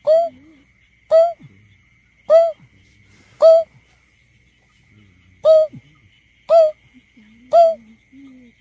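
Greater painted-snipe giving its lure call: a series of short, hollow hoots, about one a second, with a one-second pause after the fourth. Each note turns up in pitch at the end.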